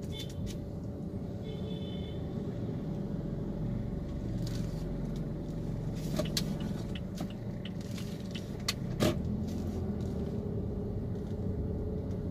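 A car's steady low engine and road rumble, heard from inside the cabin as the car creeps along in slow traffic. A few light clicks sound over it, and a sharper click comes about nine seconds in.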